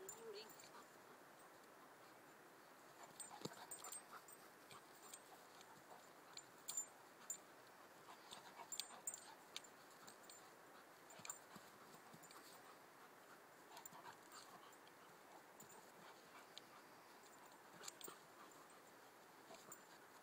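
Faint sounds of a young German Shepherd and an English Springer Spaniel puppy at play: panting with scattered short scuffling clicks, busiest in the first half.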